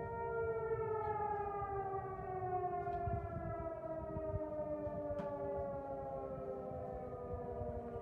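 ASC T-128 AC/DC outdoor warning siren winding down at the end of its test, its tone falling steadily in pitch over several seconds.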